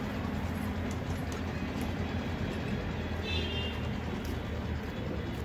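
Steady low outdoor rumble, with faint clicks and a short high chirp about three and a half seconds in.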